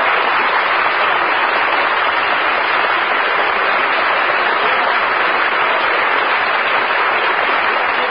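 Studio audience applauding at the close of an old-time radio broadcast, a steady dense clatter of clapping with no single claps standing out.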